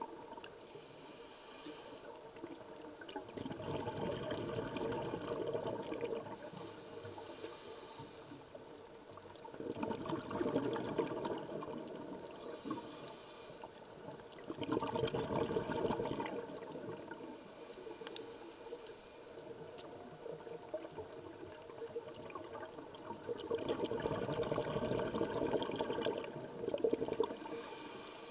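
Scuba regulator breathing heard underwater: repeated bursts of bubbling exhaled air, each a few seconds long, with quieter stretches between them.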